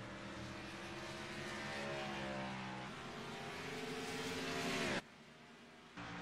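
Race car engine running, then climbing steadily in pitch and loudness as it accelerates from about three seconds in. It cuts off suddenly about five seconds in and comes back a second later at a steady pitch.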